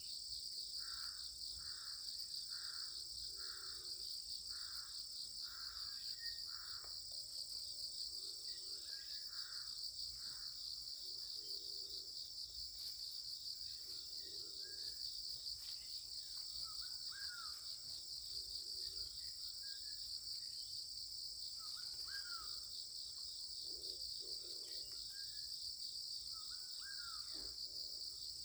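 Insects trilling steadily in a continuous high-pitched drone, with faint bird chirps now and then.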